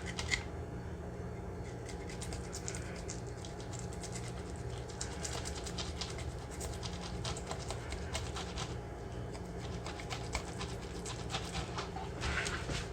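Fillet knife slicing along a striped bass's backbone: a run of small crunching clicks and scratches as the blade rides over the spine and bones, over a steady low hum.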